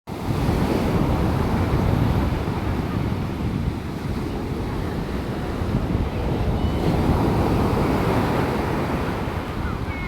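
Sea waves and wind, with the wind rumbling on the microphone in a steady, dense low noise.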